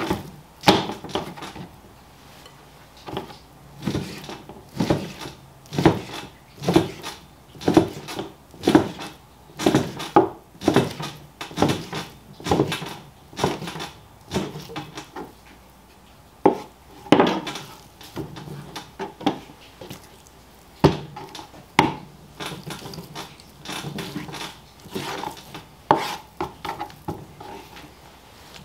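A long butcher's knife chopping beef chuck into stew-meat cubes on a plastic cutting board: a series of sharp knocks as the blade strikes through onto the board, about one a second.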